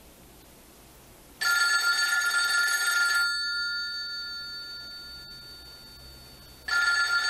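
Telephone bell ringing twice. The first ring comes about a second and a half in and lasts nearly two seconds, its tone dying away slowly. The second ring starts near the end.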